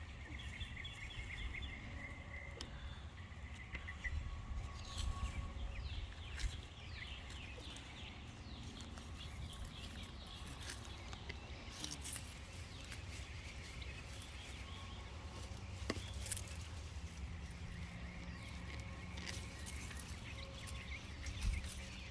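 Soft rustling and scattered clicks of soil and leaves as hardneck garlic is dug and pulled from a garden bed, over a steady low rumble. Birds chirp faintly near the start and again near the end.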